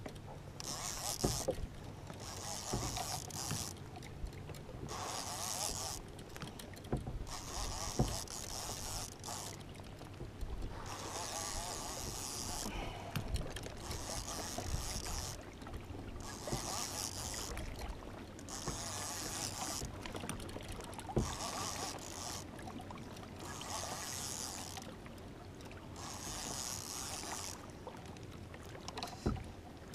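Water rushing and lapping against a kayak hull, swelling and fading about every one and a half seconds, with a few sharp knocks.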